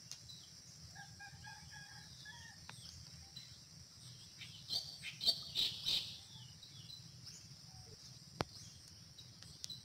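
A rooster crowing once, about a second in, over a steady drone of insects. A cluster of louder, sharper sounds comes near the middle, and a single click near the end.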